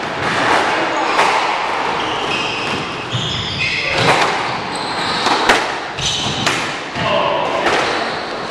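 A squash ball being struck by rackets and smacking off the court walls, several sharp echoing hits a second or so apart. Between the hits, sneakers squeak on the hardwood floor.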